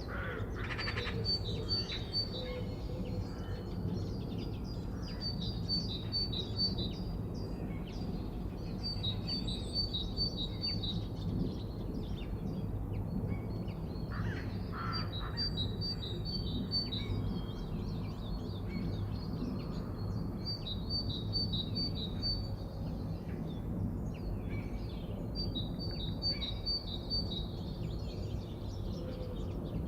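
Wild birds singing, one bird repeating a short, high phrase of quick notes every few seconds, with a few lower calls in between, over a steady low background rumble.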